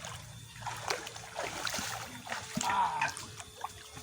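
Water splashing and sloshing with scattered knocks, and a short voiced sound about three quarters of the way in.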